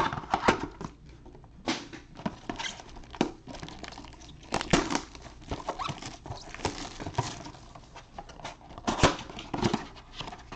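Cardboard trading-card blaster box and foil card packs handled with gloved hands: irregular taps, scrapes and crinkles as the packs are pulled out and the next box's flap is opened.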